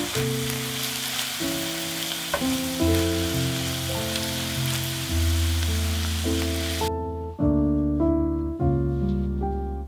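Onions and spinach sizzling in a frying pan as they are stirred with a spatula, a steady hiss that cuts off suddenly about seven seconds in. Background music with held notes plays throughout.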